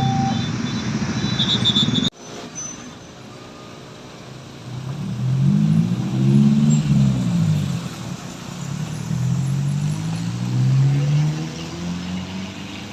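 A bus's diesel engine pulling away, its pitch rising and falling twice as it works through the gears. In the first two seconds there is loud road noise with the last high notes of a telolet musical horn, cut off sharply.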